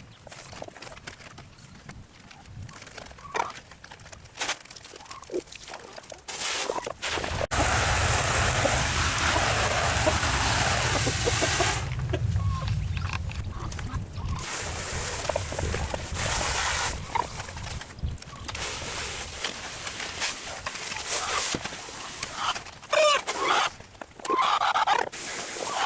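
Chickens clucking and calling at intervals, with a loud stretch of noise from about eight to twelve seconds in.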